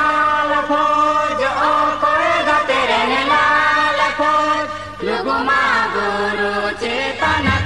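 A group of voices singing a song together, in long held notes and gliding phrases, over a faint steady low hum.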